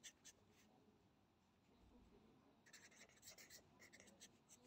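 Pen writing on lined notebook paper: faint scratching strokes, a few near the start and then a steady run of them from a little under three seconds in.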